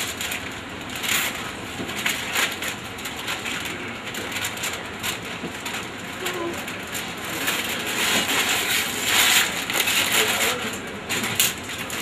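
Gift wrapping paper being torn and crumpled off a large box: a run of crinkling and ripping that gets louder about eight seconds in.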